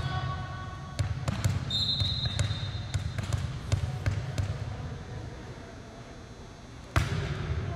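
Volleyball rally in an echoing gymnasium: sharp slaps of the ball being hit and striking the court, about a second in and again near the end, with lighter taps and footfalls thudding on the hardwood between them. A short high squeak sounds about two seconds in.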